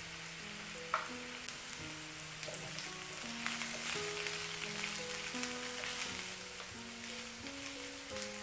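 Sliced onions sizzling and crackling in hot oil in a frying pan while a silicone spatula stirs them, with a sharp click about a second in.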